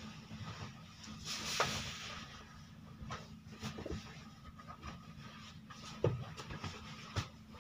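Bed linen rustling and being tucked in by hand while a bed is made up, with a longer swish of sheet about a second and a half in and a few soft knocks against the bed. A steady low hum runs underneath.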